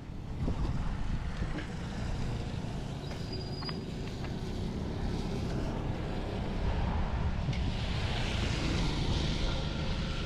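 Wind buffeting the microphone, a steady churning rumble, with a broader hiss swelling up about seven seconds in.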